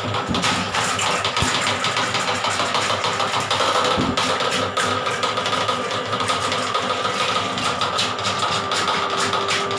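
Electric drain-cleaning machine running steadily, its spinning steel cable clicking and rattling as it is fed into a clogged bathroom floor drain.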